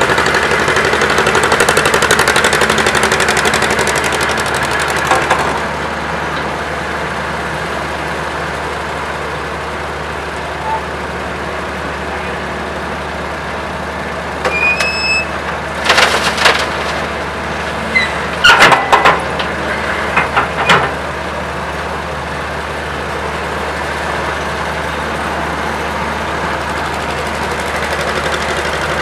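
Vintage Weserhütte Pionier cable shovel at work, its diesel engine running with a fast rattling beat that eases after about five seconds to a steady hum. About halfway through there is a short squeal and a run of sharp metallic clanks and knocks.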